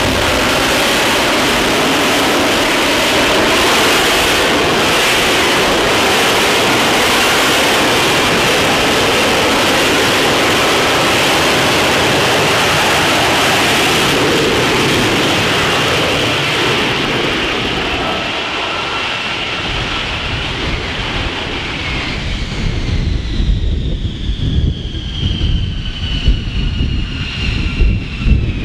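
F-35B Lightning II hovering in vertical-landing mode on its F135 jet engine and lift fan: a loud, steady jet roar. About eighteen seconds in, the roar gives way to a lower rumble and a high turbine whine that slowly falls in pitch as the jet taxis.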